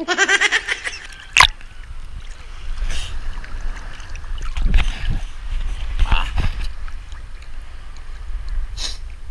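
Sea water sloshing and splashing against a camera held at the surface by a swimmer, with a steady low rumble as it bobs in and out of the water. A short gurgle right at the start and a sharp knock about a second and a half in.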